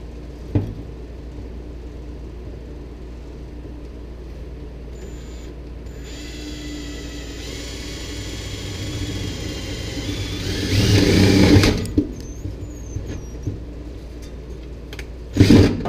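Cordless drill running with a steady whine while boring a hole up through the Jeep's sheet-metal floor; it starts about six seconds in, grows louder as the bit cuts, and stops suddenly about twelve seconds in. A sharp knock near the end.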